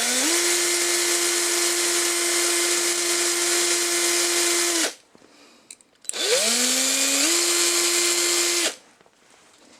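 Electric drill running a bit through the axle hole of a die-cast toy car to clear junk out of it. It spins up with a rising whine, runs steadily for about five seconds and stops, then runs again for about two and a half seconds.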